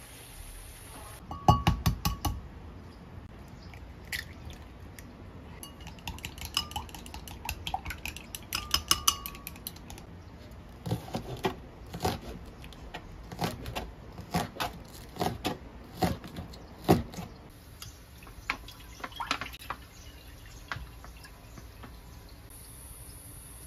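Kitchen prep clatter: utensils clinking against cookware, then a knife cutting a Korean leek on a plastic cutting board in separate knocks roughly once a second through the middle.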